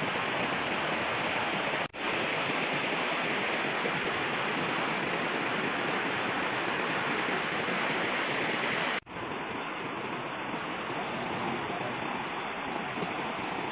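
Steady rushing of a fast-flowing river over rapids, with two brief dropouts.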